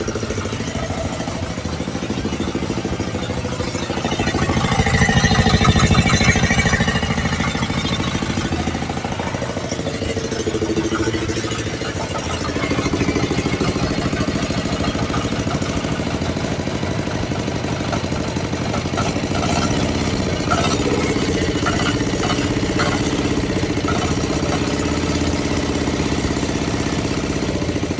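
Small Yanmar diesel engine running on its first test run after an overhaul to cure loss of compression from a leaking valve. It runs louder for a few seconds about four seconds in, then settles to a steady run.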